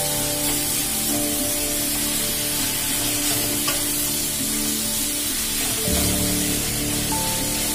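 Sliced onions sizzling steadily in hot oil in a metal kadai as they are stirred with a spatula, with a brief click of the spatula against the pan partway through. Background music plays over it.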